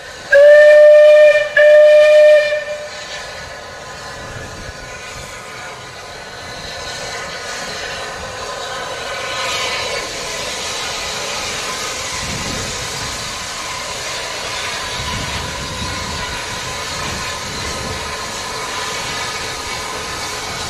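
Steam locomotive whistle, most likely that of rebuilt Bulleid West Country class No. 34028 Eddystone, blown in two short blasts close together. Then a steady steam hiss that builds as the engine draws slowly forward.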